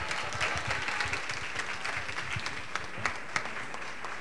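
Audience applauding steadily, with a few sharper claps standing out about three seconds in.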